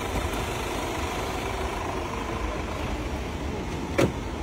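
Mercedes Sprinter van's engine running steadily at idle close by, with a sharp clack about four seconds in as its sliding side door is opened.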